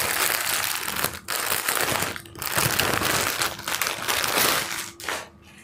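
Crinkly packaging being handled and pulled open, a dense run of crinkling and rustling that dies down near the end.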